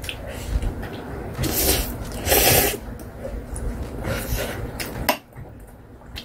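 A person slurping and chewing instant stir-fried ramen noodles, with two loud slurps about a second and a half and two and a half seconds in and smaller mouth sounds after. A single sharp click about five seconds in.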